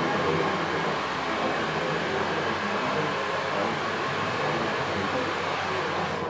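Handheld hair dryer running steadily as hair is blow-dried into a pompadour, switched off at the very end.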